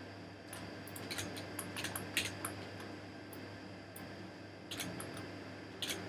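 Irregular, scattered clicks of a computer mouse and keyboard, some in quick little runs, over a steady low hum.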